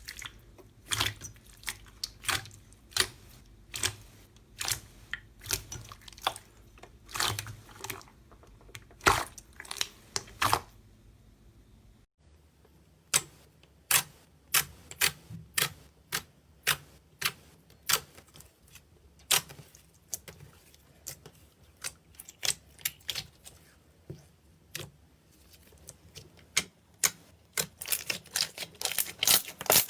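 Slime being pressed and poked by hand, giving sharp, separate pops and clicks about one to two a second. There is a brief lull about twelve seconds in, and the clicks come thicker near the end.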